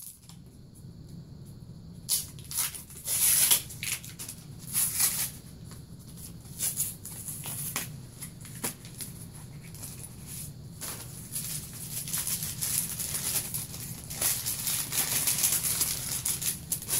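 Tissue paper and packing peanuts rustling and crinkling in irregular bursts as hands dig through a cardboard box, over a steady low hum.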